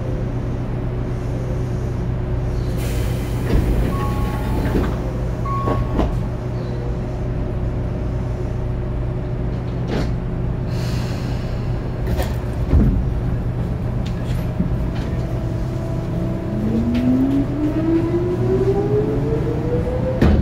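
Onboard running noise of a Tobu 9000 series electric commuter train: a steady rumble and hum with scattered clicks and two short bursts of hiss. From about three quarters of the way in, the traction motors' whine rises steadily in pitch as the train accelerates.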